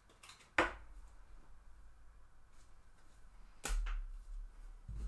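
Handling noises as trading cards and packs are moved about on a table. There is a sharp tap with a low thump about half a second in, a second one a little after three and a half seconds, and a few faint ticks between them.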